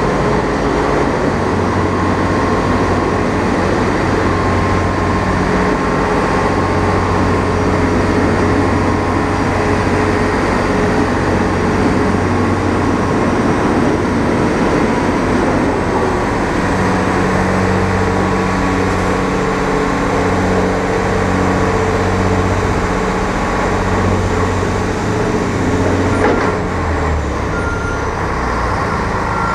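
Heavy truck's diesel engine running steadily with a low hum while driving, mixed with road and wind noise picked up on the outside of the cab.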